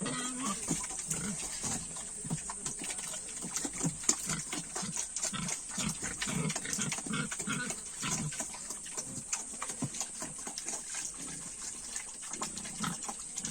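Domestic pigs grunting over and over, a few short grunts a second, while feeding, with many short clicks and smacks of eating.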